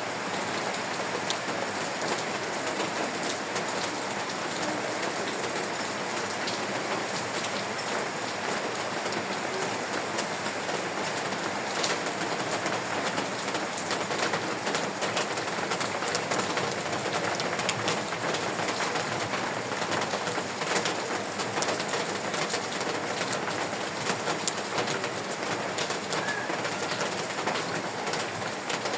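Steady rain falling, with many individual drops ticking sharply against a surface.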